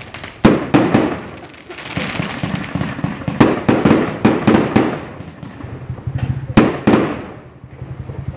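Fireworks going off overhead in a quick, irregular series of sharp bangs with crackle after each. The biggest pair comes about six and a half seconds in, and the bangs thin out near the end.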